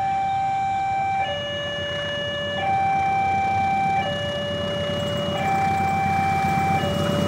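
Railway level-crossing warning alarm sounding a steady two-tone hi-lo signal, switching pitch about every second and a half. Under it the low rumble of the approaching CC201 diesel-electric locomotive builds toward the end.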